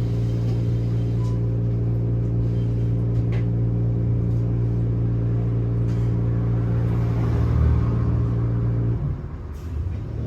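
Electric trolleybus standing with its doors open, its onboard equipment giving a steady low hum with overtones that cuts off suddenly about nine seconds in; a few faint clicks come through over it.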